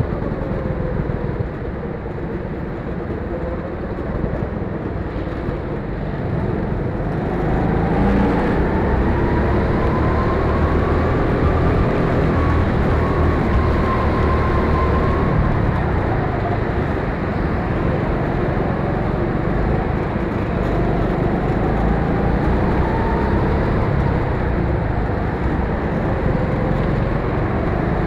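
Go-kart engine heard on board under way, its pitch climbing and dropping in long sweeps as the throttle opens and lifts through the laps, over a steady rumble of wind and tyres.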